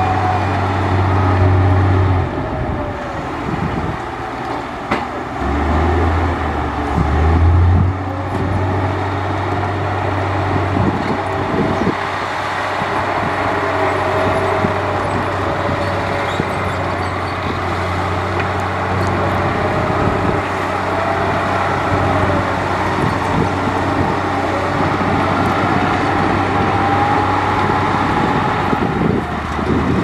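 Heavy diesel earthmoving machinery running under load, a steady low engine drone that swells for a couple of seconds in the first third, with faint wavering squeals above it.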